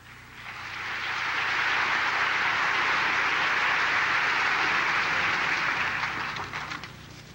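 Audience applause in a large hall, swelling up, holding steady, then thinning out into scattered claps and fading near the end.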